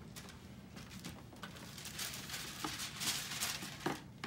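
Tissue wrapping paper and plastic packaging rustling and crinkling as hands pull it back inside a shoe box. The rustling grows busier after about a second and a half, with a few light taps and clicks in between.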